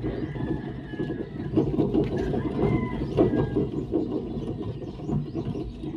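Mitsubishi Mirage G4 on the move, a steady low hum with road noise: the humming of a worn rear wheel bearing.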